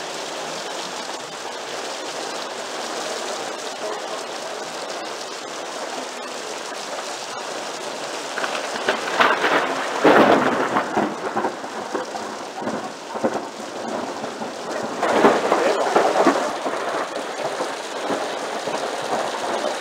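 Heavy rain falling steadily on a garden, with two louder surges of about two seconds each, around nine and fifteen seconds in.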